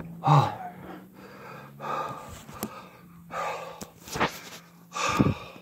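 A man breathing hard and gasping for air, with heavy breaths about once a second. He is winded after a long, strenuous set of push-ups.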